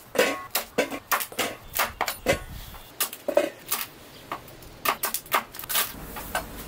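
Kitchen knife cutting fresh bamboo shoots on a wooden cutting board: an irregular series of sharp chops as the blade goes through the shoot and hits the board, stopping about six seconds in.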